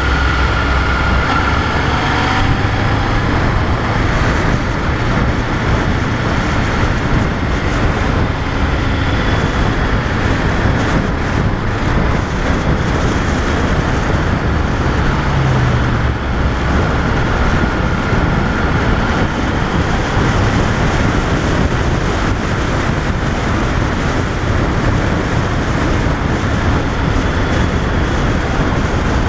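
Loud, steady wind noise on the microphone of a camera mounted on a moving motorcycle. Under it runs the engine of a 2005 Honda VFR800, a V4, at cruising speed.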